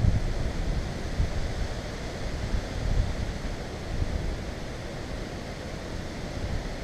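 Wind buffeting a GoPro's microphone: an uneven low rumble that swells several times over a steady rushing hiss.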